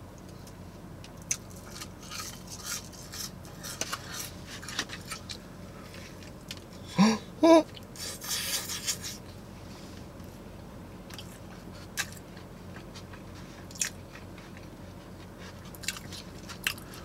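Close-up chewing and biting of crunchy fried onion rings and a cheeseburger, with small crackling crunches throughout. About seven seconds in there is a short voiced sound from the eater.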